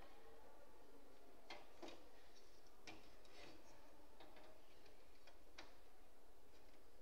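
A handful of faint, irregular clicks and taps from hands working inside a desktop computer's metal case, unplugging the case fan's cable from the motherboard.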